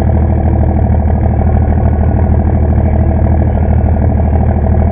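A pulling vehicle's engine idling steadily, loud and close, with a fast even throb that holds the same speed throughout.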